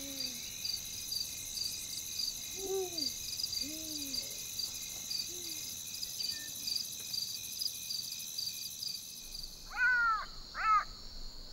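Night-time bush ambience: crickets chirp in a steady, fast-pulsing chorus, with about five low hooting calls in the first seven seconds. Two louder, harsh calls come close together near the end.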